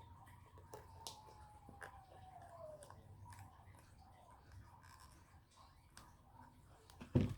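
Faint scattered clicks and taps of small objects being handled, with a faint tone sliding down in pitch over the first three seconds and a short louder sound near the end.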